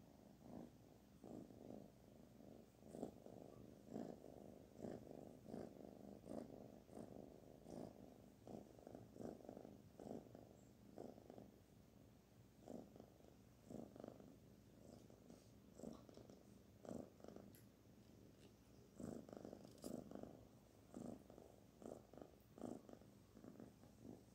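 Kitten purring faintly and steadily while being stroked, the purr swelling and fading in rhythm with its breathing.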